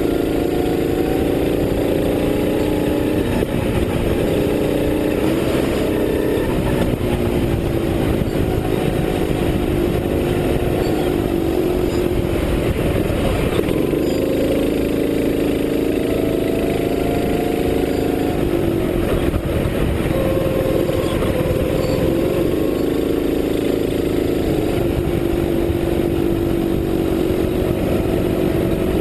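Racing kart engine heard from on board at racing speed. Its pitch climbs along the straights and drops back each time the driver lifts for a corner, several times over.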